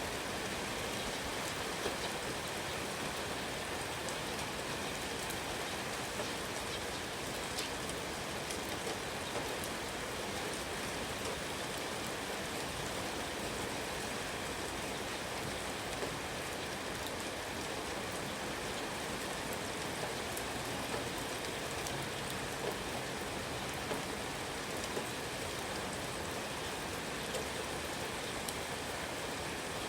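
Steady rain falling, with scattered louder drops tapping every few seconds.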